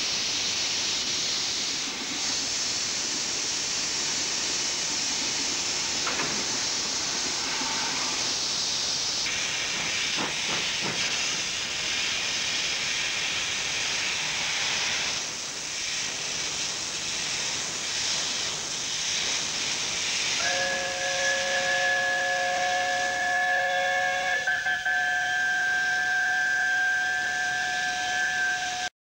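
Steam locomotive passing with steam hissing steadily from its cylinder drain cocks. About two-thirds of the way through, its chime whistle sounds a chord of several notes together and holds it, the chord shifting a little partway.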